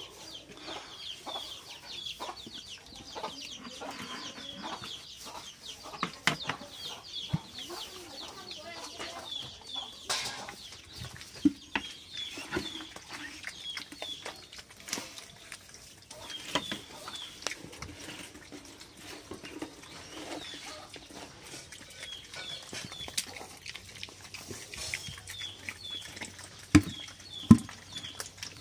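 Pigs feeding from a plastic bowl: chewing and snuffling, with knocks against the bowl and two louder knocks near the end. Short high chirps repeat in quick runs throughout.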